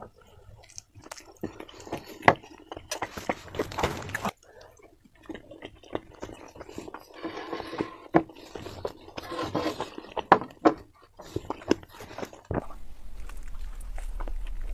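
Close-miked chewing and biting of Kayseri yağlama, wet mouth sounds with irregular clicks and smacks as the sauce-soaked flatbread is eaten. A low steady hum comes in near the end.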